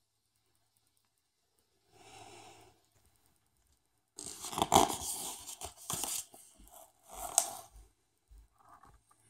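Pages of a hardcover picture book being turned by hand: the stiff paper rustles and swishes in several separate strokes, starting about two seconds in, the loudest a little after the middle.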